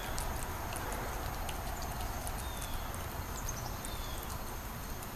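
A cat eating wet food from a bowl: soft, irregular chewing and smacking clicks over a steady outdoor background hiss.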